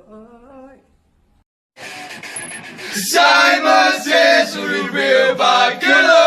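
A few spoken words, a second's silence, then a hiss and loud singing with music that start about two seconds in and run on.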